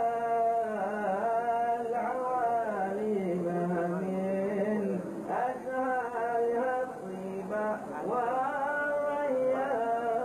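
A man singing Arabic devotional verse unaccompanied, in long drawn-out phrases whose notes bend and waver in pitch, with brief pauses between phrases.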